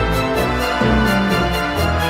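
Background music with a steady beat over held notes and a bass line.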